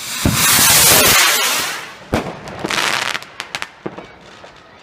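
A firework going off: a loud hiss swells and fades over the first two seconds, then a sharp bang and a scatter of smaller cracks and pops.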